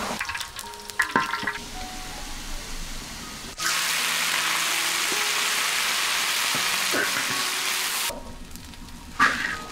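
Cooking in an iron wok: a bamboo strainer scraping and clinking as fried peanuts are scooped from the oil, then about three and a half seconds in a loud, steady sizzle of dried chilies frying in hot oil that cuts off after about four seconds. Near the end, a ladle scrapes the wok and gives one sharp knock.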